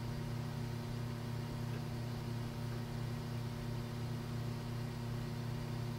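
A steady low hum that does not change, with no other distinct sounds.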